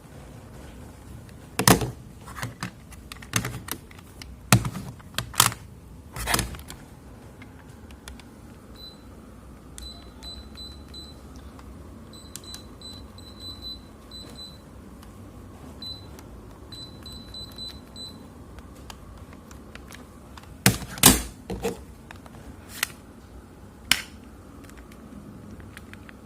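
Sharp AH-AP12MHL air conditioner running in clean mode with a steady low hum. Sharp clicks and knocks come several times near the start and again near the end, and in the middle there are several quick runs of short, high electronic beeps.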